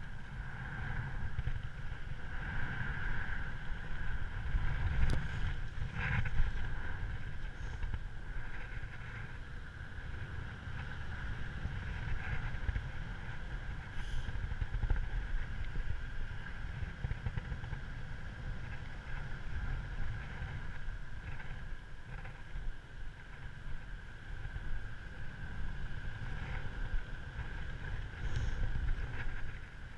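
Airflow buffeting the microphone in flight under a paraglider, a steady low rumble with a faint steady high tone above it and a few light clicks.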